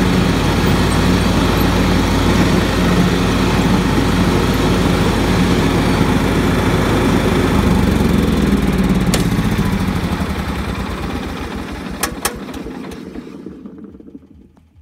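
Riding lawn mower engine running steadily; about eight seconds in its note changes and the sound dies away to near silence, with a few sharp clicks on the way down.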